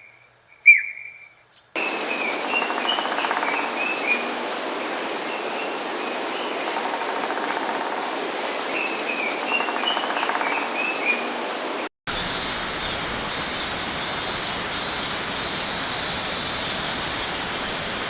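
Japanese green woodpecker calling in short chirpy clusters over a steady rushing background noise. About twelve seconds in, the sound cuts briefly and gives way to a different steady hiss with a higher band of bird or insect sound.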